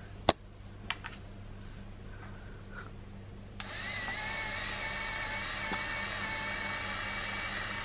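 A sharp click, then about three and a half seconds in a handheld electric lint shaver switches on and runs with a steady high whine.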